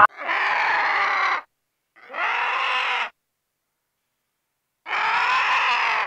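Vulture calling: three drawn-out calls of about a second each, with silent gaps between them.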